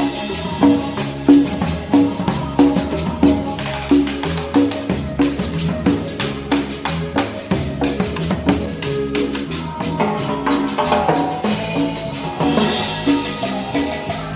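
Live band music driven by percussion: timbales and drums struck in a quick, even rhythm over a repeating bass line.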